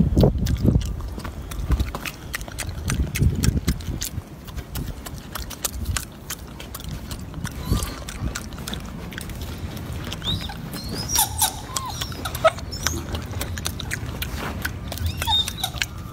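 Golden snub-nosed monkey chewing and smacking on a piece of baked sweet potato close to the microphone: a steady stream of small wet clicks. There is low rumbling noise over the first few seconds, and a few short high chirps from about ten seconds in.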